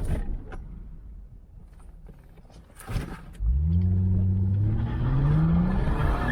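A low rumble with a couple of knocks, then about halfway through a vehicle engine comes in suddenly with a low hum that rises slowly in pitch.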